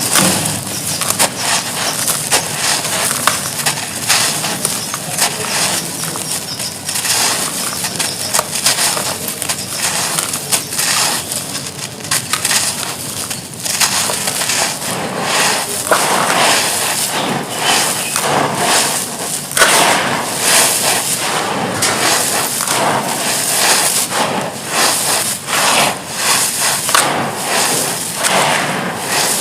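Chunks of wood charcoal crumbling in a tub of water: a dense, continuous run of small cracks, crunches and crackles.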